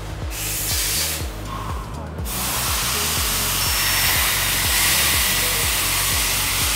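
Background music with a repeating, sliding bass line. A steady hiss joins it about two seconds in and stays to the end.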